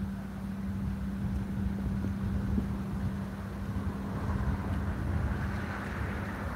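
Wind buffeting the microphone in an uneven low rumble, over a steady low hum that fades out near the end. A higher rushing hiss swells over the last couple of seconds.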